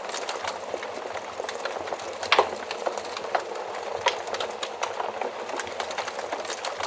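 Wood fire burning in a fireplace: a steady soft hiss with irregular crackles and pops, two louder snaps about a third and two thirds of the way in.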